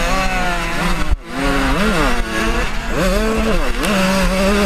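125cc two-stroke motocross bike engine being ridden hard, revving up and falling off again several times as the throttle is worked. The throttle is chopped sharply for a moment about a second in.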